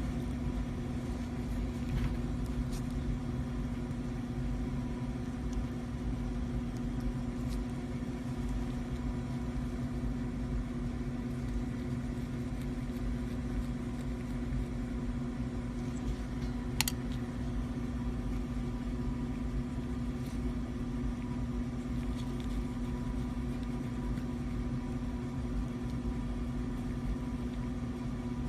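A steady machine hum with one constant tone and a low rumble underneath, with a few light clicks, the sharpest about two-thirds of the way through.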